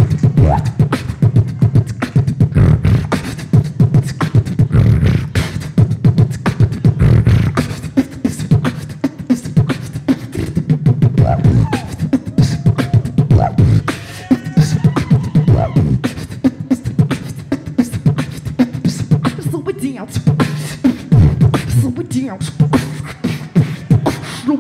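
Female beatboxer performing live into a handheld microphone: a fast, unbroken run of vocal kick, snare and hi-hat clicks over a steady low bass hum, with a few short pitched notes near the middle.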